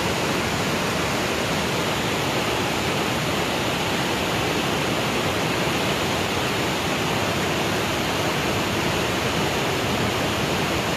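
Steady, even rush of water with no breaks or changes.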